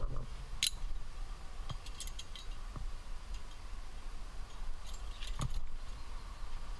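Metal climbing gear on a trad rack, carabiners and cams, clinking a few times, the clearest about half a second in and again about five seconds in, over a low rumble.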